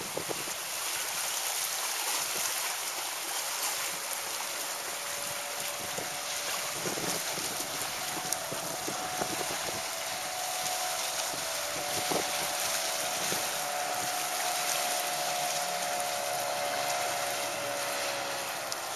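25 hp two-stroke Mercury outboard running at speed on a passing inflatable tunnel-hull boat, its engine note faint under steady wind noise on the microphone. The engine note comes up a few seconds in, holds steady, and falls slightly in pitch near the end.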